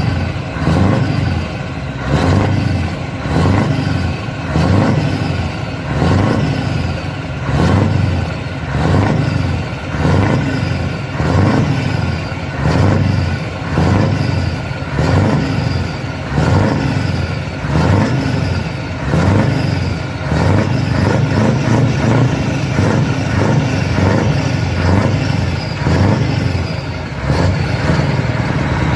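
Scania R620's V8 diesel engine revved in repeated short throttle blips, a little over one a second, each followed by a high falling whistle, then running evenly near the end.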